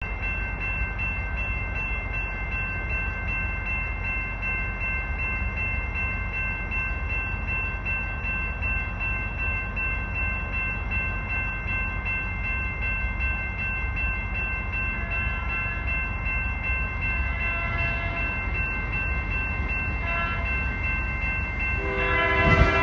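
Distant diesel freight train approaching: a steady low rumble with several steady high-pitched tones. Its horn starts sounding about 22 seconds in, near the end.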